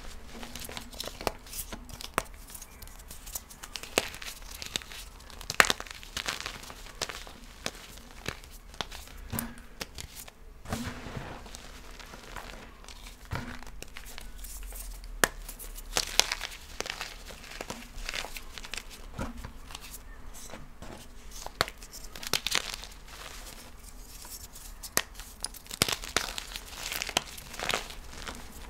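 Light blue reformed gym chalk being crushed and crumbled, a dense crunchy, powdery crackle with louder snaps every second or so.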